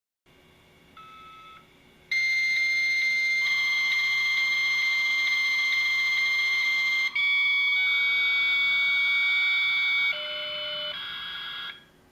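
56K fax modem dial-up handshake: a brief beep, then a loud steady high tone with regular clicks, joined by hissing, warbling data tones that change in steps and drop quieter before cutting off abruptly near the end. This is the modem negotiating a connection with the far end.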